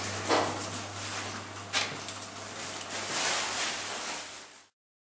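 Kitchen background noise: a steady low hum with hiss and a couple of light knocks or clatters, like a drawer or cupboard, then the sound cuts off abruptly near the end.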